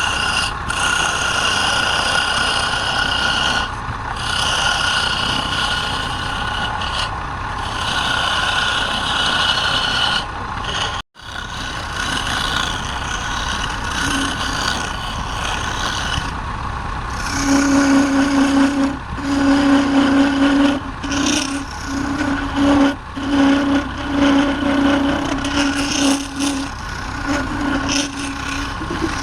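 Wood lathe running as a turning tool cuts the spinning wood in repeated passes. There is a steady hum, and whining tones start and stop with each cut. From about two thirds of the way in, a lower hum comes and goes in short stretches.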